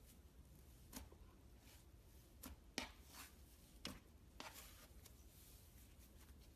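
Fluffy cloud slime being handled by hand, giving faint soft crackles and about five short sticky pops over a few seconds.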